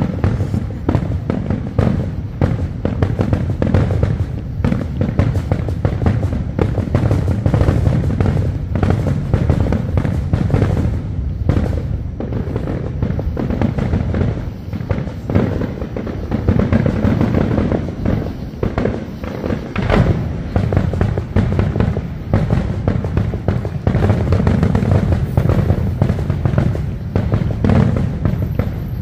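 Aerial fireworks shells bursting in a dense, unbroken barrage, with booms and crackles overlapping throughout.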